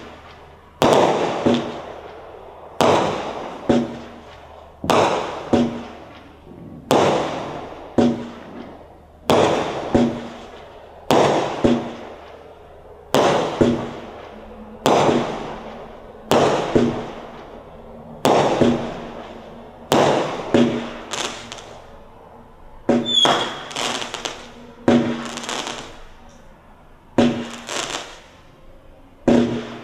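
Black Cat 'God Bless 'Merica' 20-shot consumer fireworks cake firing, with a sharp bang about every two seconds, each one fading off over a second or so.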